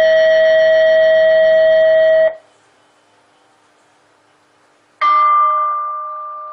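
Electronic bell sounds from a school-bell amplifier played through a horn speaker: a loud, steady tone that cuts off sharply about two seconds in, then, after a short pause, a single struck bell tone that rings and slowly fades.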